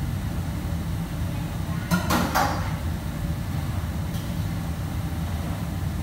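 Steady low rumble of commercial kitchen equipment, with a short clatter of metal pans and utensils about two seconds in.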